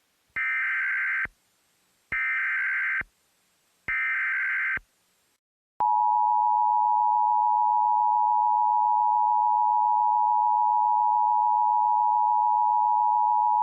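Emergency Alert System tones: three buzzing SAME header data bursts of about a second each, then the steady two-tone EAS attention signal held for about eight seconds, which announces a new alert.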